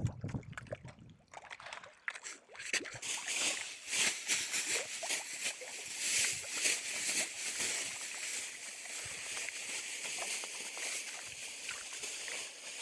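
Water splashing and sloshing: a dense, crackling run of many small splashes that starts about two and a half seconds in and carries on.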